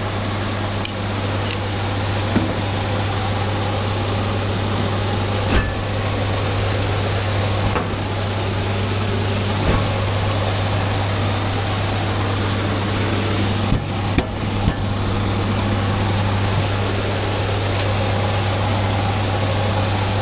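Vehicle engine running steadily with a constant low hum, heard from inside the cab, with a few short knocks and rattles scattered through it.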